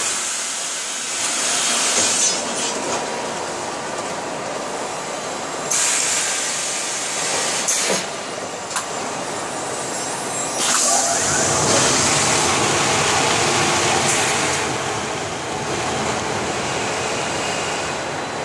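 Automatic fabric press machine and its conveyors in a textile factory running steadily, with several stretches of hiss. A couple of short knocks come around the middle, and from about two-thirds of the way through a heavier, lower running noise sets in.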